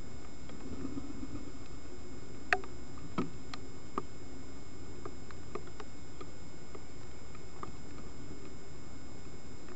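Steady hiss and faint electronic whine of a trail camera's microphone, with scattered faint ticks and clicks; the sharpest click comes about two and a half seconds in.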